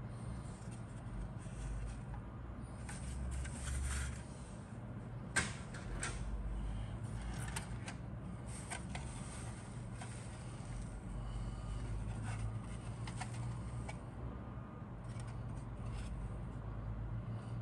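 Injection-moulded plastic model-kit parts being handled: scattered light clicks and taps of plastic, the sharpest about five seconds in, over a steady low hum.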